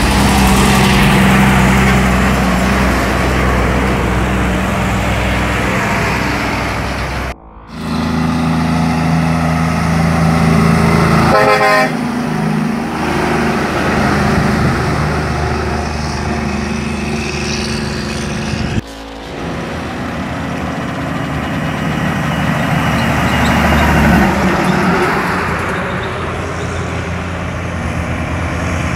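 Heavy diesel tractor-trailer trucks passing close by one after another, their engines droning steadily, with a short horn toot about a third of the way through.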